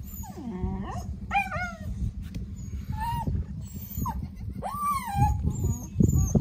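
Newborn goat kids bleating: a string of about six short, high cries that bend in pitch.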